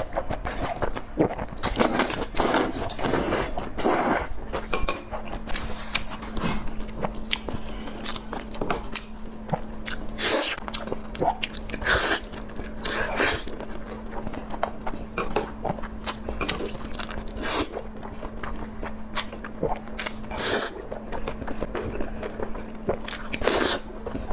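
Close-miked chewing and biting of food, with many irregular wet clicks and smacks of the mouth. A faint steady hum sets in about four seconds in.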